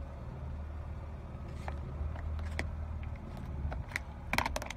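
A car's engine runs low and steady as its tyre rolls slowly over small plastic cups of coloured liquid, with scattered cracks and crackling as the cups break and a quick burst of loud sharp cracks near the end.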